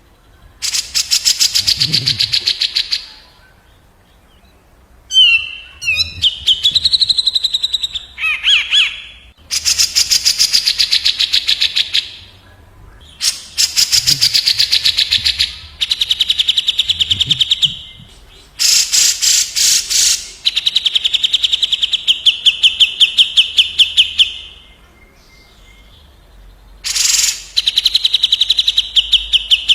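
Cucak jenggot (grey-cheeked bulbul) and kapas tembak calling back and forth in fast, harsh rattling trills, each bout two to three seconds long. A few short gliding whistles come about six to nine seconds in.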